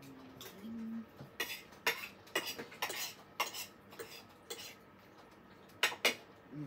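Metal spoon and fork clinking and scraping against a plate while eating: irregular sharp clicks, about one or two a second, with two close together near the end.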